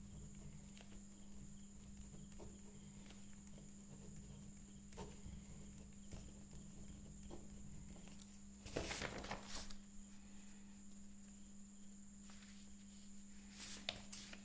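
Ballpoint pen writing on paper: faint scratches and light taps over a steady low hum, with louder paper rustling about nine seconds in and again near the end as a sheet is moved.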